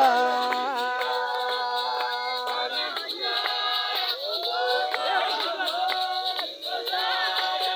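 A congregation singing a hymn together without instruments, many voices holding long notes.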